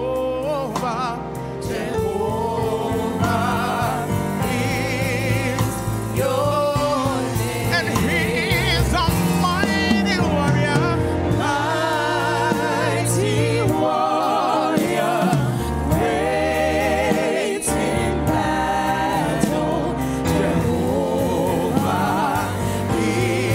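Gospel praise-and-worship song sung by a small group of singers into microphones over instrumental accompaniment, the sung notes wavering with vibrato.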